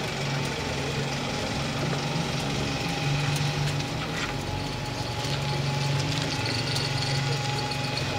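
Diesel engine of a single-deck bus running at low speed as the bus turns and pulls past close by, with a steady high whine above the engine note.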